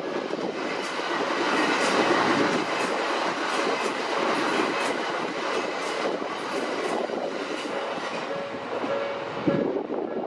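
Tobu Skytree Line electric train passing over a level crossing, its wheels clacking over the rail joints. The crossing's warning bell rings in short repeated tones under the train noise, clearest near the end.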